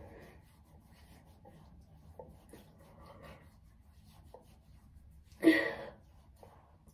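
Faint rubbing of hands spreading cream over the face, with a few small ticks. A short voiced sound, like a brief syllable, about five and a half seconds in.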